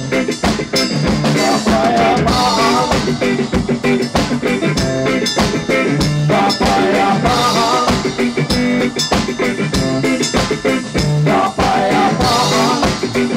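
A small live band playing a reggae song on electric guitar and drum kit, with a wavering melody line that comes back about every five seconds over a steady beat.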